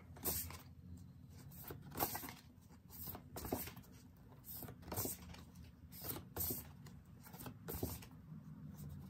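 Paper posters being leafed through by hand, a short rustle each time one is turned over, about every second and a half.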